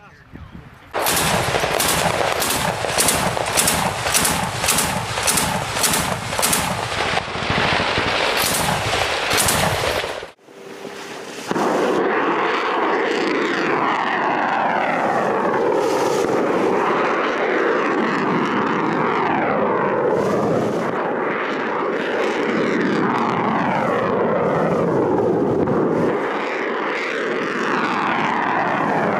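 Machine-gun fire, about two sharp reports a second, stops about ten seconds in. After a short pause comes the steady loud rush of cruise missiles in flight, its pitch falling again and again as they pass.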